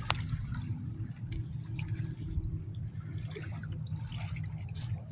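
Water dripping and splashing lightly in scattered small ticks, over a low steady rumble.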